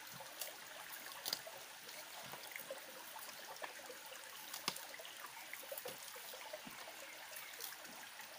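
Small forest stream trickling over rocks, a steady hiss of running water. A few faint clicks of hands handling things, the sharpest about four and a half seconds in.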